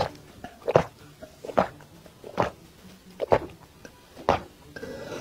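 A person gulping a drink from a glass, six loud swallows at an even pace of a little more than one a second, picked up close by a clip-on microphone.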